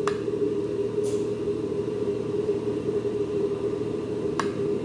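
A steady low electrical hum, like a running kitchen appliance, with a sharp clink of a metal spoon against a glass baking dish of mashed potato right at the start and another near the end.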